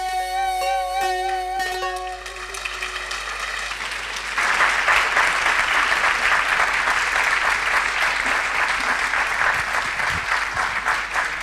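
A ney and a plucked long-necked lute end a tune, the ney holding a last wavering note for about two seconds over the plucked strings before it fades. About four seconds in, an audience breaks into steady applause.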